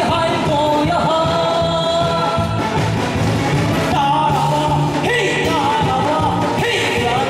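A singer's voice with vibrato over loud, continuous backing music.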